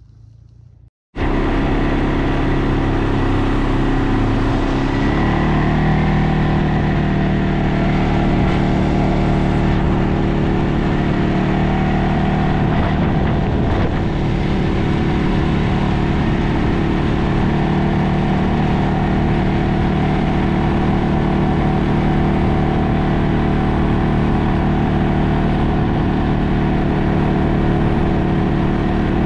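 ATV engine running steadily at close range. It cuts in abruptly about a second in, and its note rises about four seconds in, then holds level.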